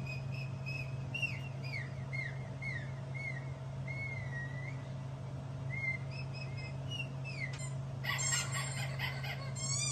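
A songbird chirping: a run of short whistled notes, many of them falling or arching in pitch, over a steady low hum. Near the end the bird gives way to a cat meowing.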